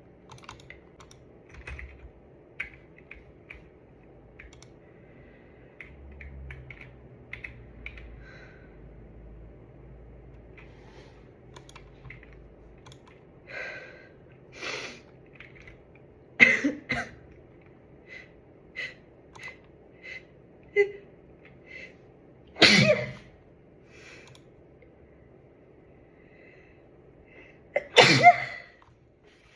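A person with a cold sneezing three times loudly, about six seconds apart, in the second half. Softer breathy sounds and faint small clicks come before and between the sneezes.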